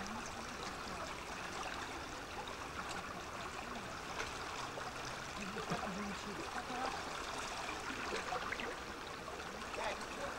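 Steady rushing of flowing river water, with faint bits of voices around the middle.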